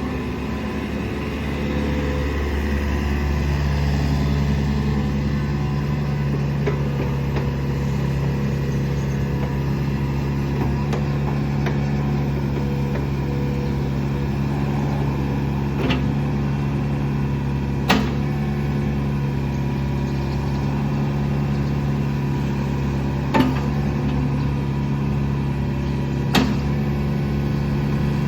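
Komatsu PC45R-8 mini excavator's four-cylinder 4D84E diesel engine running steadily, dipping slightly at the start. Four sharp knocks stand out over it in the second half, the second of them the loudest.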